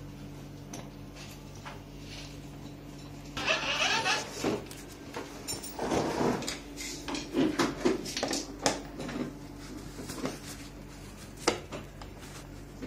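Hard plastic parts of a toy ride-on motorcycle being handled and set down, with rustling of plastic wrapping and scattered clicks and knocks, one sharper knock near the end. A steady low hum runs underneath.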